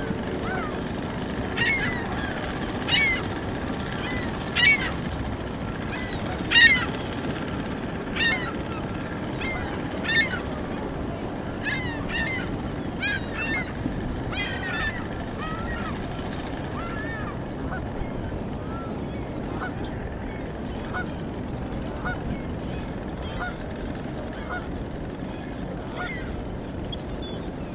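Geese honking: single honks every second or two, then a busier flurry of calls in the middle that grows fainter and sparser toward the end, over a steady low rush of background noise.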